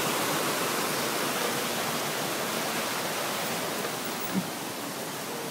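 Rushing water of a rocky stream, a steady hiss of rapids that slowly fades a little. A single short knock about four seconds in.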